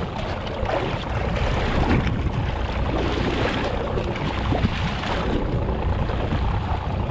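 Steady wind buffeting the microphone over the wash of open-ocean waves against a small boat's hull.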